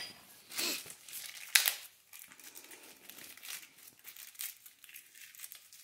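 Small clear plastic bag crinkling and rustling as it is worked open by hand, with a sharp crackle about one and a half seconds in, then lighter, irregular crinkling.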